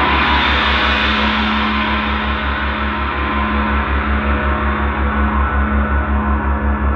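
Large Paiste gong ringing on after a stroke, a dense shimmer whose brightness slowly fades, over a deep hum that throbs about four to five times a second.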